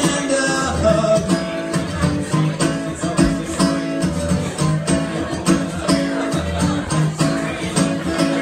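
Acoustic guitar strumming chords in a steady rhythm, a short instrumental stretch between sung lines of a song.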